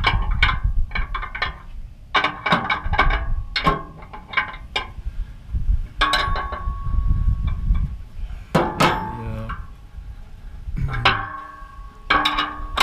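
Metal parts of a motorcycle hitch rack clanking and clinking as they are handled and fitted together: groups of sharp knocks, several with a short metallic ring.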